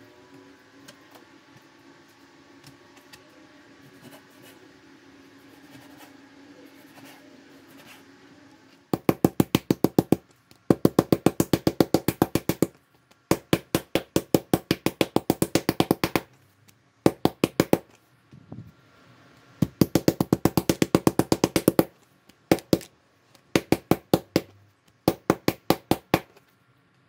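A metal meat tenderizer mallet pounding pork cutlets flat on a plastic cutting board that rests on a shock-absorbing mat. Starting about nine seconds in, it beats in quick runs of sharp knocks, about seven a second, with short pauses between runs. Before that there is only quieter knife work cutting the pork.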